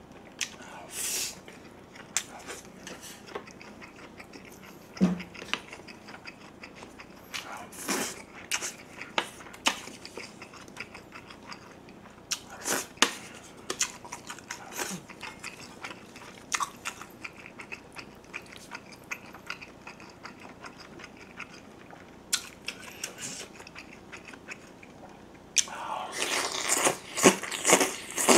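Close-miked chewing and wet lip smacks of a person eating rice, sausage and kimchi stew, with scattered short sharp clicks. About 25 seconds in, a louder, denser run of slurping as he sips the stew broth from a spoon.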